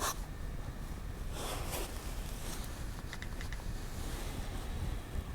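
Faint handling sounds at a work table over a steady low hiss: a soft rustle a second and a half in, then a few light clicks a little after three seconds.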